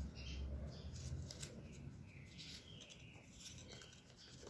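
Faint rustling and rubbing of EVA foam petals being handled and pressed together, with a few soft clicks, growing fainter toward the end.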